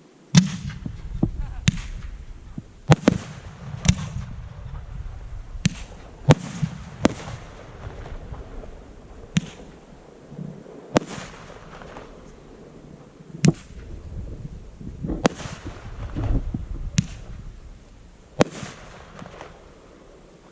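A fireworks display: aerial shells bursting in an irregular series of about fourteen sharp bangs, each trailed by a second or so of hissing crackle, over a low rumble.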